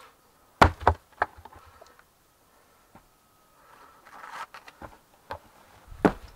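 A wooden log dropped onto the earth floor of a dug pit lands with two sharp knocks in quick succession as it hits and bounces, followed by a few lighter knocks. Later comes a short rustle, and near the end a heavier thump as a person jumps down into the pit.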